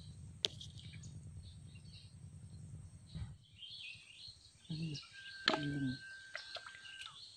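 Small birds chirping in the open, with a thin steady whistling note in the second half. A low steady rumble fills the first three seconds, and two short voice sounds break in near the middle.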